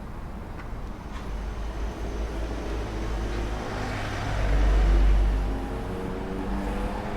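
A road vehicle passing, its low rumble swelling to a peak about five seconds in and then fading.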